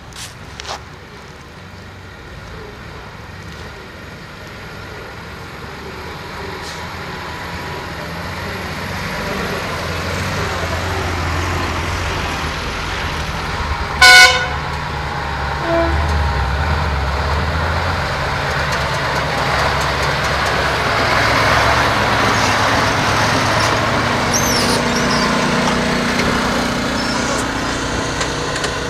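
Vehicle running on the move, its noise growing steadily louder, with one short horn toot about 14 seconds in.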